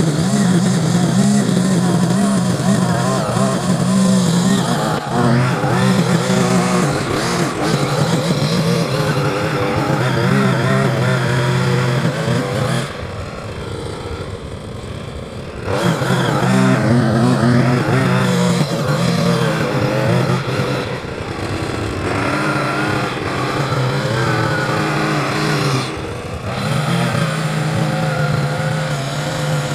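Small petrol engine of a handheld yard power tool running hard at high throttle. It eases off for a few seconds about 13 s in and again briefly near 26 s, then revs back up.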